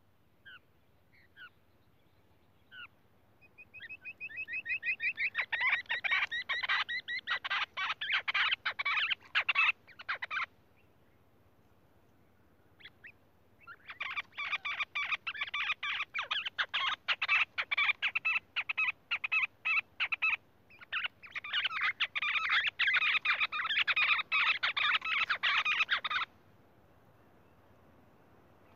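A Lahori bird calling: a few short chirps, then three long runs of rapid, chattering repeated notes, each several seconds long, with short pauses between.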